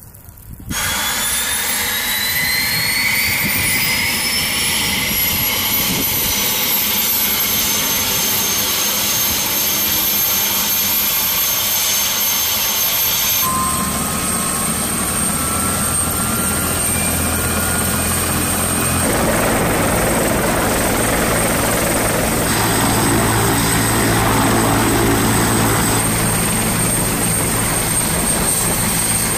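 Helicopter turbine engines starting: a high whine rising in pitch over the first several seconds as the engines spool up. After abrupt changes about halfway through and a few seconds later, the running helicopter gives a steady high whine over a low drone.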